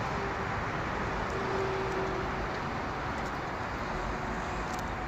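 Steady hum of distant road traffic, with a faint steady tone in it.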